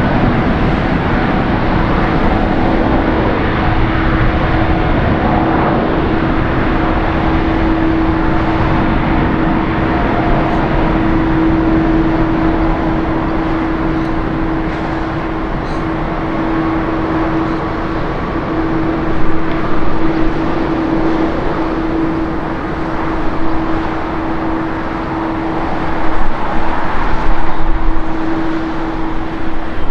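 A Boeing 747-8's four GE GEnx jet engines at takeoff thrust during the takeoff roll and climb-out: loud, steady jet noise with one constant droning tone. It swells louder in the last few seconds as the jet lifts off.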